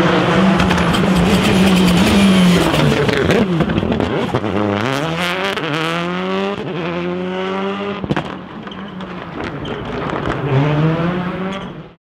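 Rally car engine, a Citroën Xsara WRC, held at high revs, then dropping as the car brakes and downshifts about four seconds in. It then accelerates hard, its pitch rising through several upshifts, with a few sharp pops around the gear changes. The sound cuts off suddenly at the end.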